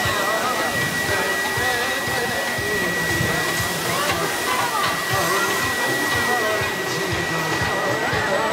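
Steady rush of an electric air blower keeping an inflatable play structure inflated, with a thin, steady high tone, and crowd voices faint behind it.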